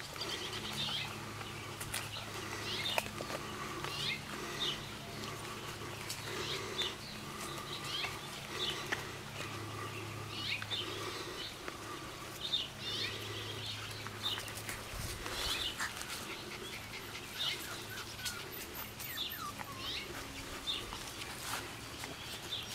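Puppies whining and yipping, short calls coming about once a second, over a faint steady low hum.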